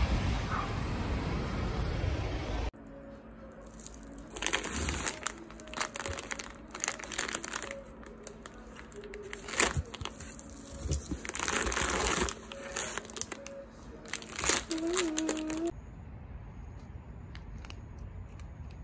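Plastic produce bags crinkling and rustling in irregular bursts as hands unpack bagged greens and lemons from a foil-lined insulated box. It follows a couple of seconds of steady outdoor street noise.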